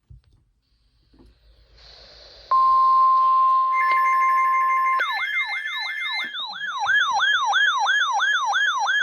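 NOAA Weather Radio alert: radio hiss, then the steady 1050 Hz warning alarm tone, which marks the start of a new warning. About halfway through, a weather radio receiver's siren alarm takes over, sweeping down about three times a second.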